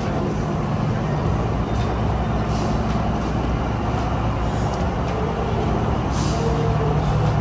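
Heavy engine running with a steady low hum, with short hisses of air about two and a half seconds in and again about six seconds in.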